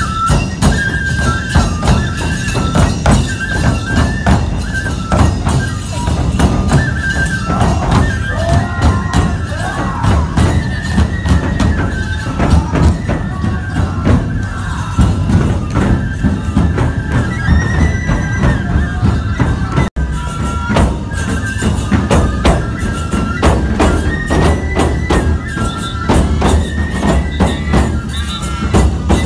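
Nebuta hayashi festival music played live. Large taiko drums beat, bamboo transverse flutes play a repeating high melody, and small hand cymbals (tebiragane) clash rapidly. There is a momentary gap about twenty seconds in.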